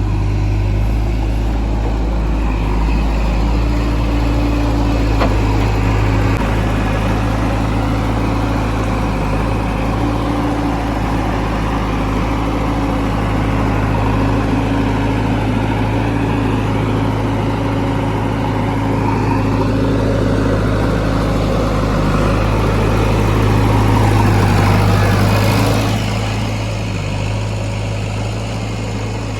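Diesel engine of a JCB 3DX backhoe loader running steadily while it works. It grows louder for a few seconds near the end, then eases off.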